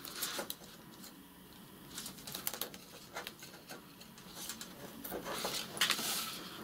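Double-sided tear tape being pulled off its roll, pressed onto a cardstock flap and torn, with light rustling and tapping of the card under the fingers: small clicks and short scratchy rips, the longest about five seconds in.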